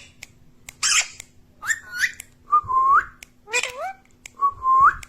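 Pet ringneck parrot calling: about five short whistles and chirps, a second or so apart, two of them rising whistles.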